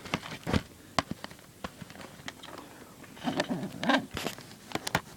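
Plastic shrink-wrap on a CD case being torn and peeled off: scattered sharp crackles and clicks, with a denser burst of crinkling a little past halfway.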